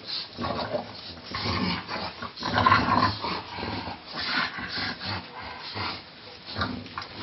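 Two English bulldogs growling at each other as they wrestle, in uneven bursts, the loudest about two and a half seconds in.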